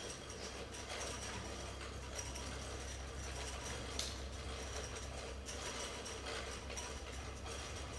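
Hand chain hoists on gantry frames being hauled to lift a heavy load: continuous rapid clicking of hoist chain and ratchet pawls over a steady low hum.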